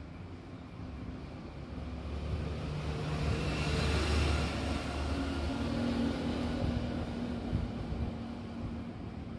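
A motor vehicle passing by, its rumbling noise swelling to a peak about four seconds in and then slowly fading.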